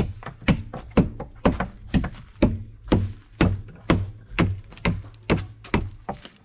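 A steady series of hard blows, about two a second, each with a short ring, as a concrete block is struck to cut it to size.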